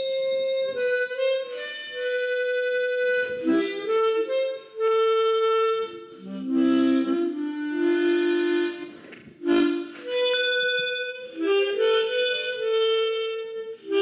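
Instrumental background music: a slow melody of long held notes, some doubled into two-note chords, in phrases with short breaks.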